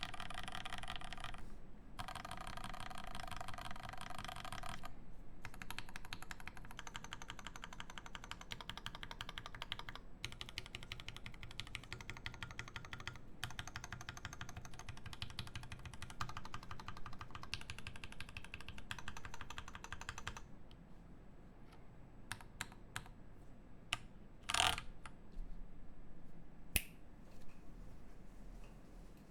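Typing on a Rama M60-A mechanical keyboard with lubed Zealios V1 Redux switches and GMK keycaps: a fast, steady stream of keystrokes for about twenty seconds, then a few scattered key presses and a single louder knock.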